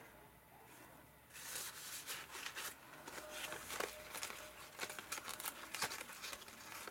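Faint rustling and crinkling of paper and card as journal pages and tags are handled and turned over, with small taps and flicks, beginning about a second and a half in.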